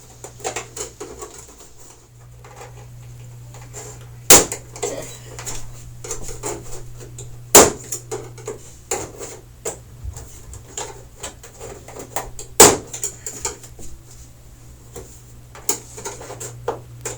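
Plastic retaining clips of a flat-screen TV's casing snapping loose as a pry tool levers it apart, with three sharp snaps about four, seven and a half and twelve and a half seconds in and many smaller clicks and scrapes between. A steady low hum underneath.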